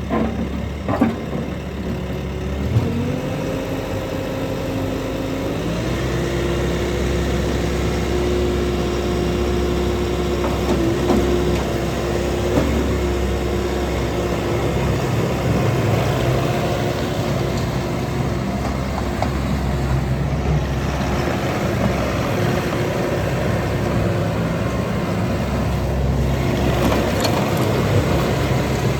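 Bobcat T550 loader's diesel engine running. Its pitch steps up about three seconds in and again about six seconds in as the revs are raised, then it runs steadily at the higher speed with a steady whine.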